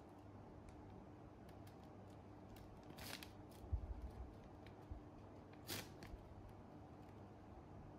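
Near silence: faint room hum with a couple of short, soft scratchy rustles, about three seconds in and again near six seconds, and a low bump between them.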